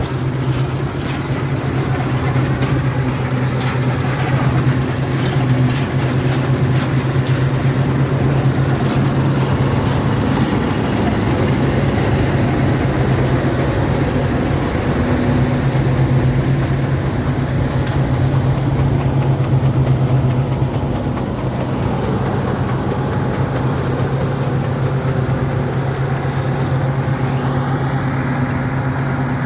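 Large diesel farm machinery engine running steadily under load, with a constant low hum and clattering over it.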